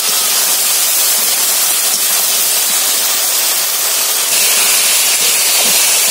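Indian jujubes (kul) sizzling in hot oil in a kadai as their water cooks off, a steady hiss that grows a little louder about four seconds in.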